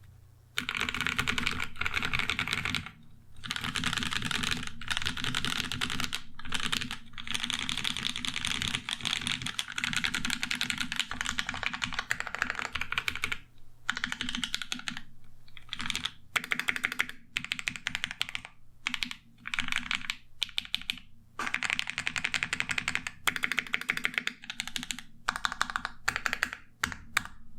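Fast typing on a custom mechanical keyboard with lubed Alpaca linear switches, GMK keycaps and a carbon fiber plate in an aluminium Klippe case: dense runs of keystroke clacks broken by short pauses.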